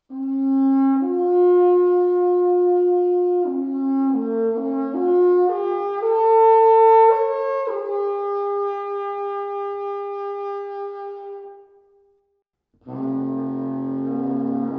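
Alphorn playing a slow solo melody of long held notes, stepping up and down, that fades out about twelve seconds in. After a brief gap, a sustained low tone with many overtones starts near the end.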